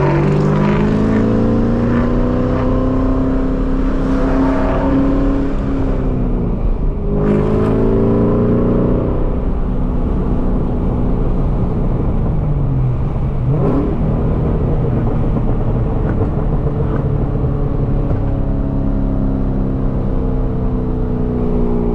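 2003 Ford SVT Mustang Cobra's supercharged 4.6-litre V8 pulling through the gears: the engine note climbs, drops at an upshift about six seconds in, climbs again, then settles to a steady cruise with a brief dip and rise about halfway through.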